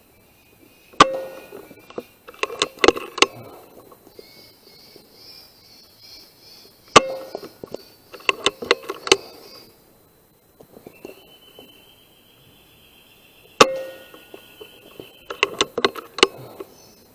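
Three sharp shots from a .177 air rifle, about six seconds apart. Each is followed a second or two later by a quick run of metallic clicks as the action is cycled to reload. Faint high chirping runs between the shots.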